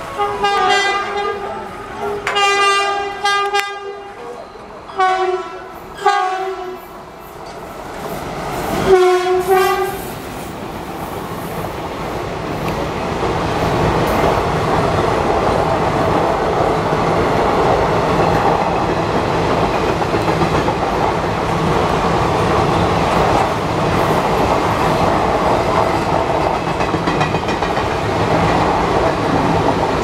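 Indian Railways electric locomotive's horn sounding five blasts in the first ten seconds, two of them long and the rest short. Then the steady rumble and wheel clatter of a train of passenger coaches rolling past, building up over a few seconds and staying loud.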